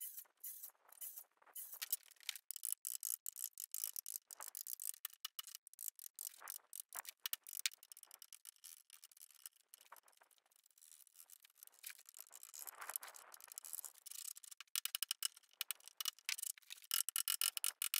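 Wood chisels cutting into a laminated timber beam, struck with a mallet and pushed by hand: a quick, irregular run of sharp taps and scraping, densest near the end.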